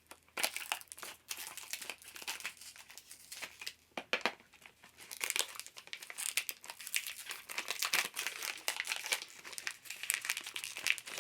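Packaging of a single-use film camera being crinkled and torn open by hand: a continuous run of irregular crackles.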